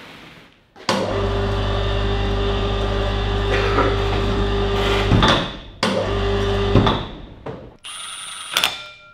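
Electric overhead hoist motor running with a steady hum as it lowers a hanging engine block. It stops briefly about five seconds in and runs again for about a second. Near the end a cordless power tool whirs briefly on the flywheel bolts.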